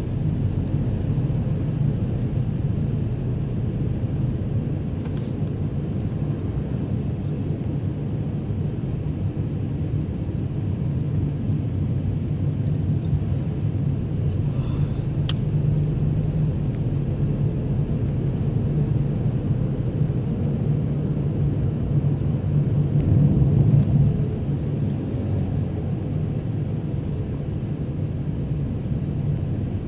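Steady low rumble of a car's engine and tyres heard from inside the cabin while driving, swelling briefly louder about three-quarters of the way through.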